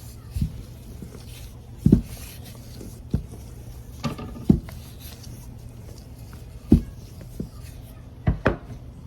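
Rolling pin knocking and thudding on the board as dhal puri dough is rolled out: about ten irregular knocks, some in quick pairs, over a steady low hum.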